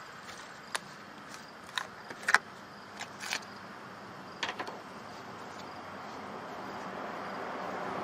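A few sharp clicks and knocks as a plastic sealer jug and sprayer hose fittings are handled, the loudest about two seconds in. A faint hiss grows steadily louder over the second half.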